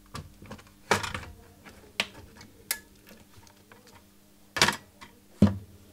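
Plastic case of an Amstrad NC100 notepad computer being worked apart by hand: a handful of sharp, irregular plastic clicks and knocks as the top shell comes free of its clips and is lifted off.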